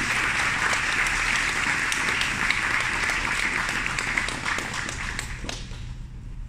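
Audience applauding, a dense patter of many hands clapping that dies away about five and a half seconds in.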